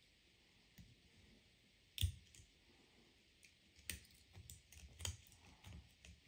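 Small metallic clicks of split-ring pliers working an open split ring and swivel onto the eye of a vertical ball fishing lure: one sharper click about two seconds in, then a run of lighter clicks.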